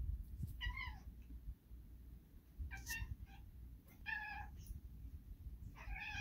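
Domestic cat meowing four times, short calls about a second and a half apart, while tussling with another cat.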